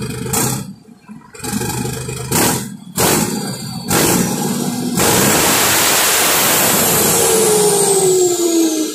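Turbocharged diesel truck engine, just fitted with a new turbo, revved in several short blips and then held at high revs for about four seconds with a loud rushing turbo howl; near the end a whistle falls in pitch as the revs come down.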